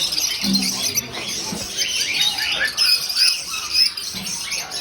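Many small caged birds chirping and twittering at once, a dense overlapping chatter of short high calls.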